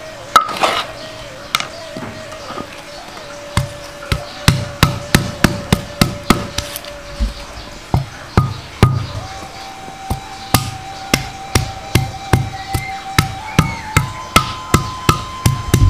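A stone pestle striking galangal and lemongrass on a stone mortar to bruise them: sharp knocks with a dull thud, a few at first and then steadily about two to three a second from about four seconds in.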